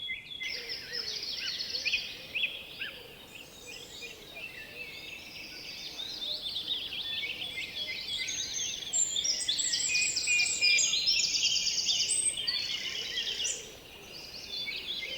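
Many birds chirping and twittering together, a dense chorus of short, high chirps that grows busier about halfway through and dips briefly near the end.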